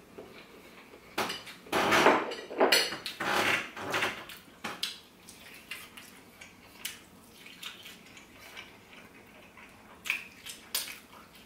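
Close-up eating sounds of biting into and chewing chicken drumsticks. In the first few seconds there are several louder bursts of handling noise as the food is picked up from the plates, then quieter scattered clicks and chewing.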